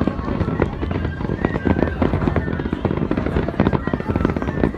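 A fireworks display: many shells bursting and crackling in quick succession over a low rumble, with music underneath.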